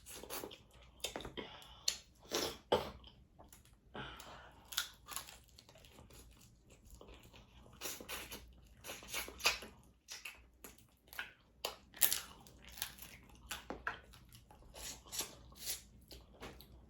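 A person eating seafood boil close to the microphone: irregular wet chewing, smacking and occasional crunches.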